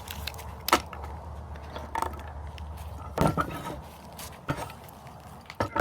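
Steel pliers clicking and knocking against a cracked AC capacitor casing as it is worked apart: about half a dozen sharp clicks at irregular intervals, the loudest about a second in and past the three-second mark. A low steady hum runs behind them.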